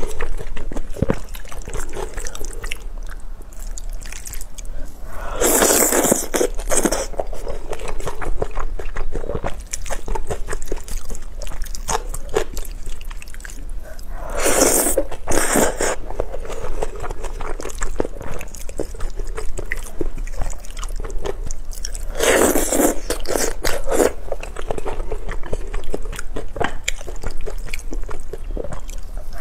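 Close-miked chewing and wet mouth sounds of a person eating wide rice-skin noodles in chili oil, with three longer, louder slurps of noodles about six, fifteen and twenty-three seconds in.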